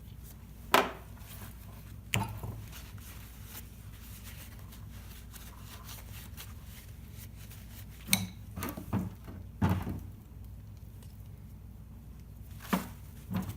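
Sharp metallic clicks and knocks of brake caliper slide pins and tools being handled and set down while the old grease is cleaned off. The knocks are scattered: one at about a second in, another at two seconds, a cluster around nine seconds and two near the end, over a steady low hum.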